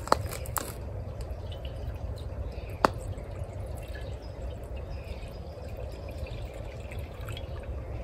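Water poured from a small metal cup into a shallow glazed bird-bath bowl, trickling and splashing into the water. Two sharp clicks stand out, one just after the start and one about three seconds in.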